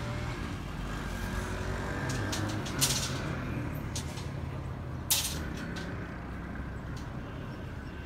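Steel reinforcing bars clinking sharply against each other twice, about three and five seconds in, with a few lighter ticks of rebar being handled. Under it runs a steady low engine rumble.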